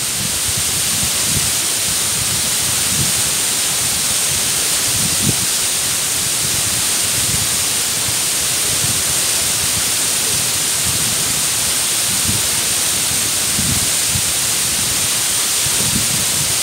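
Mumlava waterfall pouring over icy rock ledges into a pool: a steady, unbroken rush of falling water.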